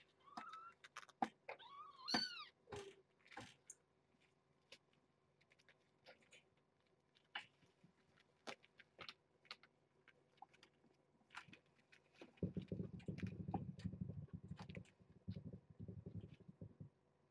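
Kitten meowing: a short rising mew, then a higher arched mew about two seconds in. Faint light ticks follow, and a low rough rumble lasts several seconds near the end.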